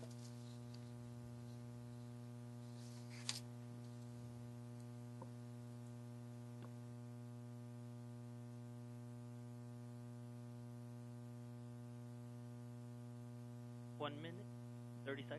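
Steady electrical mains hum on the countdown audio feed, a low buzz with a long series of overtones. There is a short click about three seconds in, and two brief snatches of voice near the end.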